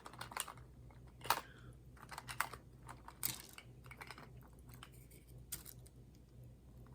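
Scattered light taps and clicks of hands handling small craft pieces on a table, with a few sharper ticks among softer handling noise.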